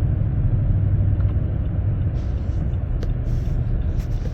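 Steady low rumble of a vehicle's engine and tyres on a snowy road, heard from inside the cabin, with a few short clicks and patches of hiss in the second half.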